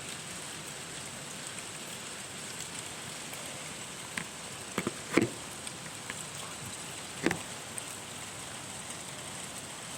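Steady rain falling, a continuous even hiss, with a few sharp knocks of drops or stones striking a surface around four, five and seven seconds in.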